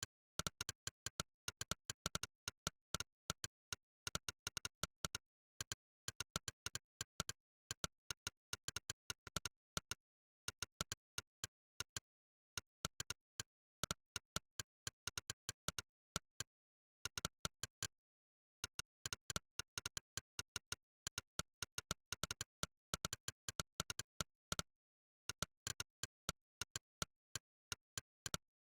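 Monkeytype's "click" keypress sound effect, one short synthetic click per keystroke, in fast typing bursts of several clicks a second. It pauses for a second or two a few times, near 10, 12, 17 and 25 seconds in.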